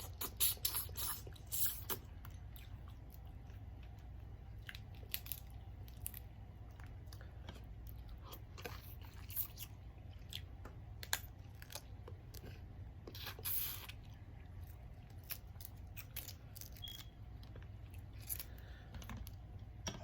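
Close-up eating of a spicy seafood boil: chewing and crunching, with irregular sharp clicks and cracks, over a steady low hum.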